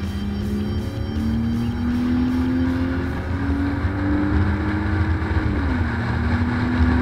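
Car engine accelerating under road rumble, its pitch climbing steadily, then dropping suddenly at an upshift about five and a half seconds in.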